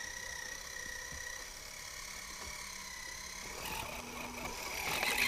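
Scale RC rock crawlers running up a slope, their electric motors and gearboxes giving a steady whine. About three and a half seconds in, a louder rustling scrabble builds up as a truck pushes through the brush close by.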